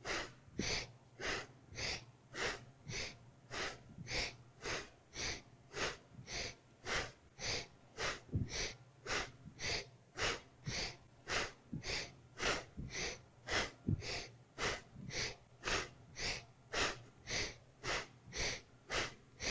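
Quick, even breathing in and out through the nose, about two breaths a second, with each inhale and exhale matched to a seated twist to one side.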